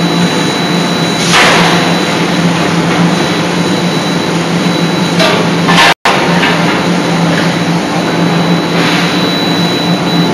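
C92K-80KJ CNC die forging hammer running in its shop, a loud steady hum with a faint high whine, broken by a few brief bursts of noise several seconds apart. There is a momentary dropout just past the middle.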